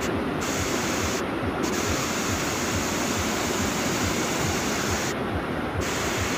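Fast, shallow river rushing over rocks and boulders: a steady, even sound of turbulent white water.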